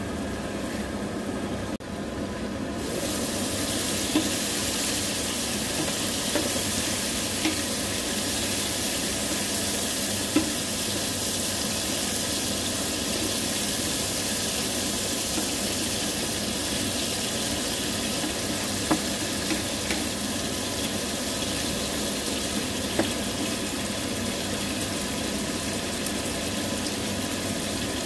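Chicken pieces sizzling as they fry in a nonstick frying pan. The sizzle grows much louder about three seconds in, and a spatula clicks against the pan now and then as the pieces are turned.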